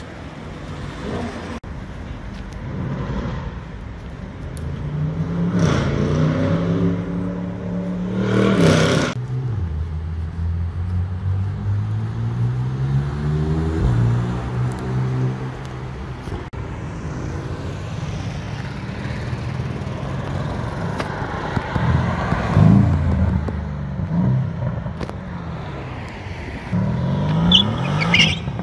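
Porsche 911 flat-six accelerating hard past, the revs climbing several times and dropping sharply at each gear change, over steady city traffic noise.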